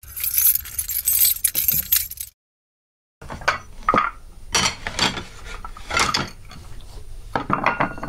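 A bunch of keys jangling for about two seconds. After a short silence, dishes clatter and clink against one another in a string of separate knocks, with a quick flurry near the end.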